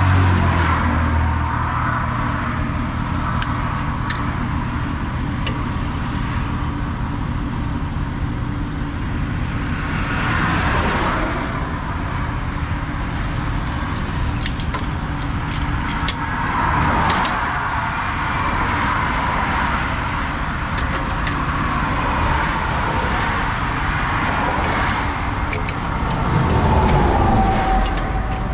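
Highway traffic passing at speed, several vehicles going by in swells, over a steady low engine hum. From about halfway through there are light metallic clinks of tools and fittings being handled.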